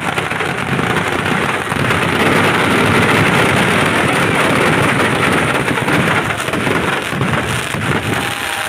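Firecrackers in a burning Ravana effigy going off in a dense, continuous crackle and rumble, loudest from about two to four seconds in.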